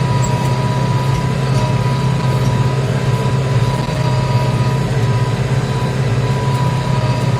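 Tractor diesel engine running steadily at full throttle under ploughing load, with a thin steady whine above the engine note.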